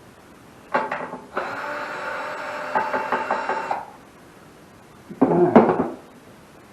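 Knocks and clatter of tools on the lawn mower's fuel tank mount, with a small motor (a cordless driver or power ratchet) running steadily for about two and a half seconds as a bolt comes out, then a louder clunk near the end.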